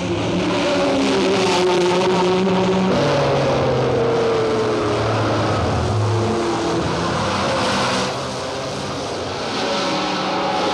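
1960s Formula One race cars running at high revs as several cars pass in turn. The engine pitch drops as one goes by about three seconds in, and the sound eases off around eight seconds in before rising again as another car comes through.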